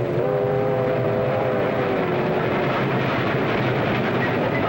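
A steam train running past with a steady rumble and rattle, on an old film soundtrack. A held chord of several steady tones sits over it and fades out about halfway through.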